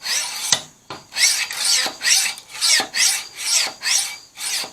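Medium Arkansas stone rubbed in repeated strokes across the flat inner face of a steel scissor blade, about two scrapes a second, flattening the freshly sharpened edge.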